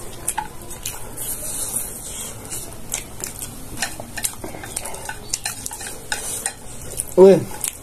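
Utensils clinking and scraping against plates or bowls as food is served and eaten, a run of light clicks and scrapes. A brief voice is heard near the end.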